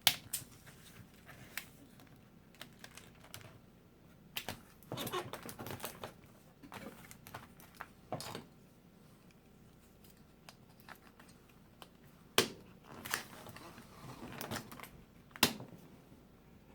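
Irregular plastic clicks and taps from handling an Asus X205T laptop as its case pieces are snapped back together, with a few sharper snaps standing out.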